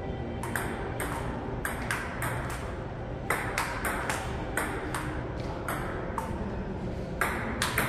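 Table tennis rally: a plastic ping-pong ball clicking off rubber paddles and bouncing on the table, back and forth about every third of a second, in a large hard-floored hall.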